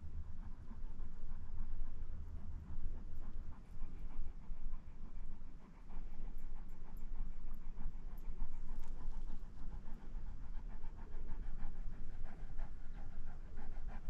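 A harlequin Great Dane panting steadily with its tongue out, in a quick, even rhythm.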